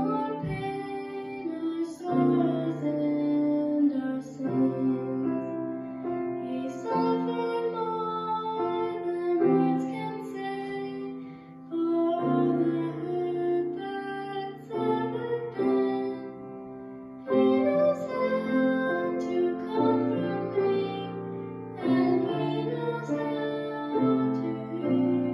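A young girl singing a slow song with piano accompaniment, the notes held for a second or two each.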